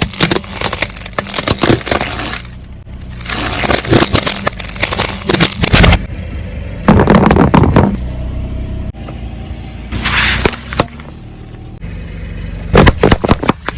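A car tyre rolling over and crushing objects, in about five loud bursts of crunching, cracking and scraping, over the car's steady low engine hum.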